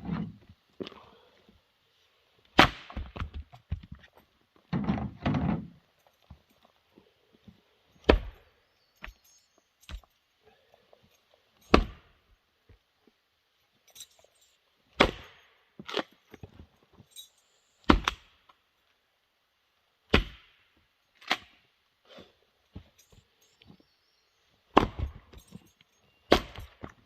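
Axe blows splitting firewood: about ten sharp, separate wooden thunks, a second to several seconds apart.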